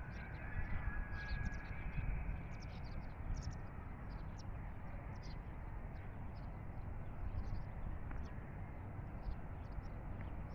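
Birds chirping in many short, quick calls over a steady rumble of wind on the microphone.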